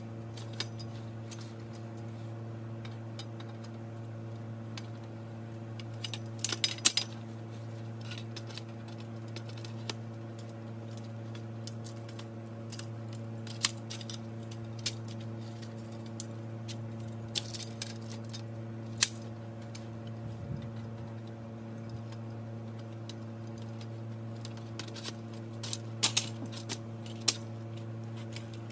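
Metal frame tubes of an A-frame blind clinking and rattling against each other as they are handled and fitted together, in scattered sharp clinks with a few quick clusters, over a steady low hum.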